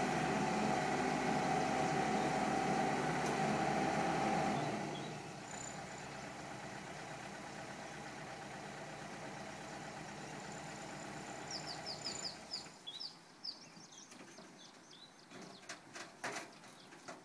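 Mini excavator's diesel engine running, dropping to a lower idle about four and a half seconds in, then shutting off about thirteen seconds in. Birds chirp as the engine dies away.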